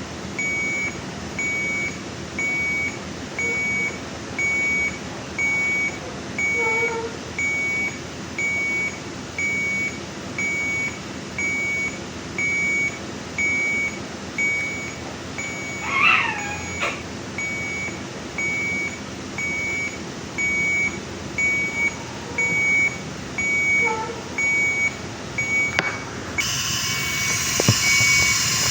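Bedside patient monitor alarm beeping, a short high tone about once a second, with a few brief weak pitched cries from the newborn, the plainest about halfway through. Near the end a loud steady rushing noise comes in.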